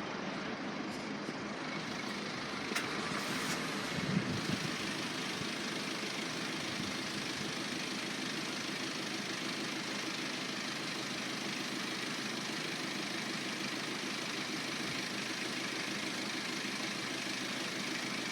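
Diesel engines of a Class 142 Pacer unit idling steadily while the train stands, with a brief clunk about four seconds in.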